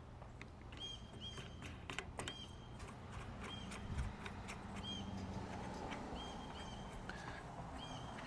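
A bird chirps over and over in short, high notes. Light clicks and a soft knock about four seconds in come from hardware being handled.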